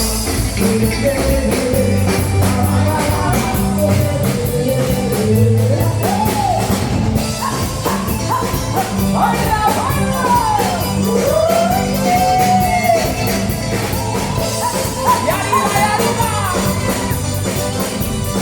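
Rock-style music with drums, bass and guitar, and a voice singing a melody over it.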